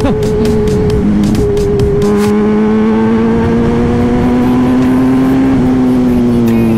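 Kawasaki Z1000's inline-four engine running at steady cruising revs in sixth gear. The revs dip briefly in the first couple of seconds, then the note climbs slowly and eases off again near the end.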